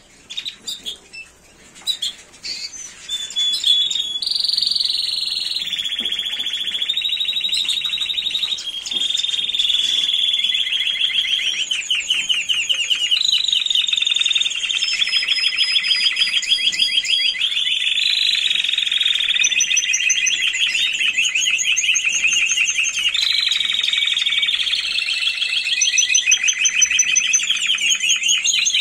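Timbrado Español canary singing: after a few scattered chirps, about four seconds in it breaks into a long unbroken run of rapid trills. Each trill holds for a second or two before switching to the next at a different pitch.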